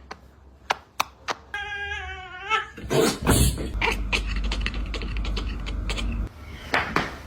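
A pet animal's short, wavering call about two seconds in, among scattered clicks and knocks. It is followed by a few seconds of rumbling, rustling noise that stops suddenly.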